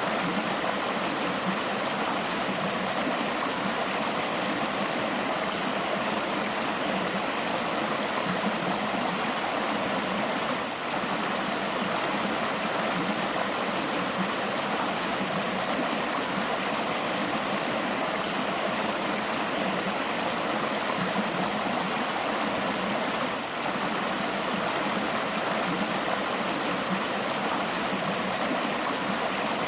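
Forest river flowing steadily over rocks, a continuous rushing and gurgling of water.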